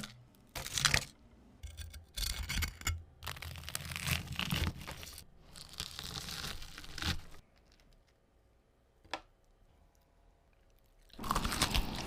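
Crisp cooked chicken leg being torn apart, crunching and tearing in irregular bursts for about seven seconds. Then a pause broken by a single click, and the tearing picks up again near the end.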